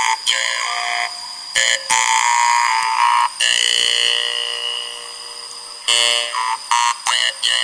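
Hmong jaw harp (ncas) played in short buzzing phrases, its overtones shifting from note to note as the mouth shapes the tune of a spoken verse. About halfway through one note is held for a couple of seconds and fades, then quick clipped notes follow.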